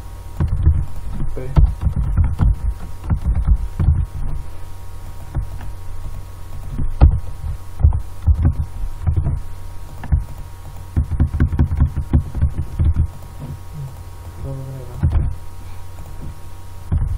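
Computer keyboard typing, heard as irregular dull thuds over a steady electrical hum.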